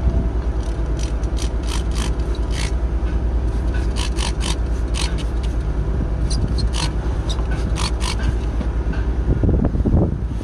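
Truck diesel engine idling steadily while building air pressure, overlaid by a string of short scraping rustles.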